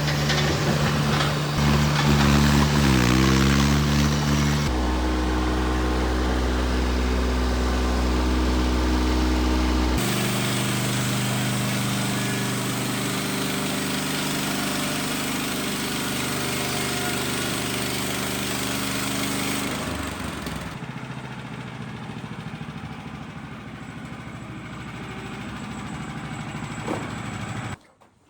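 Small gasoline engine of a portable bandsaw sawmill running steadily. About three seconds in its pitch dips briefly and recovers, and the engine sound shifts abruptly a few times as if in separate takes.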